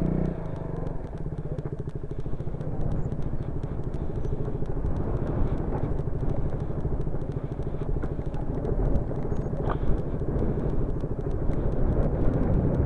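Motorcycle engine running steadily as the bike is ridden over a rough, stony dirt track, with a few faint knocks from the rough ground.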